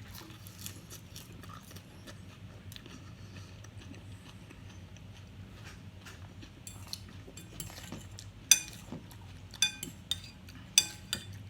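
Eating utensil clinking against dishware while eating: faint small clicks at first, then several sharp clinks with a short ring in the last few seconds.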